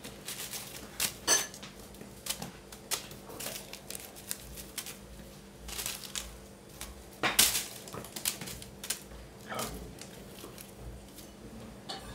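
A plastic bag and a crinkly wrapper toy rustling and crackling in irregular bursts as a Burmese kitten pounces and bats at them. The loudest crackles come about a second in and again about seven seconds in.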